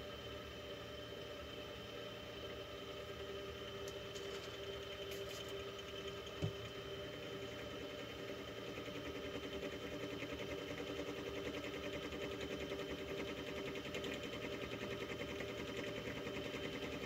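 Milling machine spindle running with a steady hum and whine while the end mill takes light cuts around the big end of a connecting rod as it is turned on a rotary table, forming the end radius. One sharp click about six seconds in, and the sound grows a little louder in the second half.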